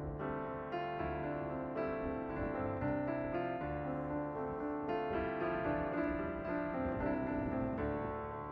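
Background piano music: gentle notes and chords played at a moderate, even pace.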